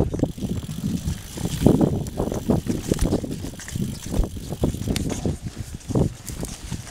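Mountain bike rattling and thudding as it rides fast over a rough dirt trail, with many irregular knocks from bumps and roots and a steady hiss of tyres and air.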